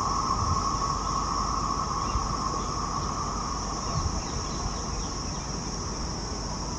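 Insects chirring steadily in two high, unbroken bands, over the low rumble of a passing train of empty wagons that slowly fades.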